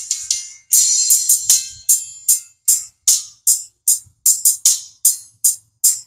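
A Technics EAS-8HH17G horn super tweeter playing music through a crossover. Only the treble comes through: crisp, hiss-bright percussion hits about two to three a second, with no bass or midrange.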